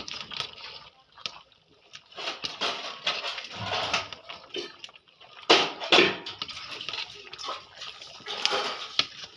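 Steel spoon stirring pieces of chicken and spice powder in a large aluminium pot, scraping and clinking against the metal, with two loud knocks about halfway through.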